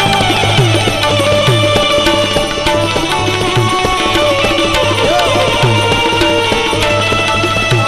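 Instrumental intro music with tabla: low drum strokes that bend down in pitch about once a second, under sustained melodic lines.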